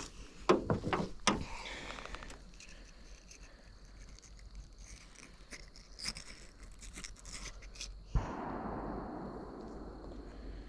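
Small clicks and rattles of handling a hooked fish and fishing tackle over a faint steady high tone. About eight seconds in there is a single sharp bang, and the noise after it fades out over a couple of seconds.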